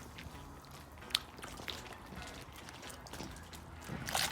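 Light dripping and small splashes of water in a paddling pool as a Lego boat is nudged, with a sharp click about a second in.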